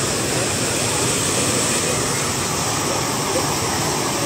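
Steady, loud rushing of a tall jet of water gushing up out of the ground and splashing back down onto the earth.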